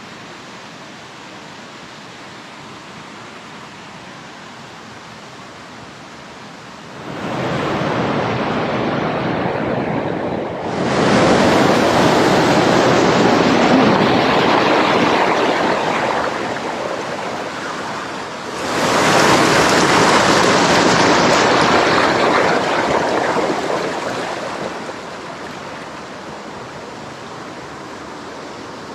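Heavy rain falling, a steady hiss that swells louder three times, about seven, eleven and nineteen seconds in, each surge fading off slowly.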